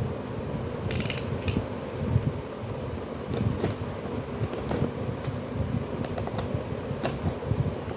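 Product packaging being handled: a few light clicks and taps, scattered and irregular, over a steady low rumble.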